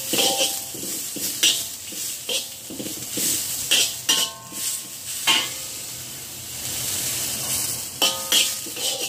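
Sliced ginger sizzling in hot peanut oil in a large wok, with a metal spatula scraping and clanking against the wok at irregular intervals as it is stirred.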